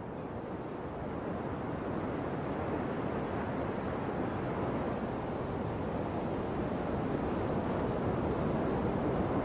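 Ocean surf mixed with wind noise on the microphone, a steady noise that fades up over the first couple of seconds and then holds level.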